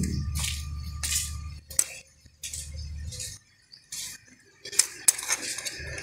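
A slim metal tool scraping and gouging inside the latch hole of a washing machine's plastic drain-pull housing, in a series of short, separate strokes with a few sharp clicks near the end. The worn plastic hole is being dug deeper so the drain pull will catch and lock.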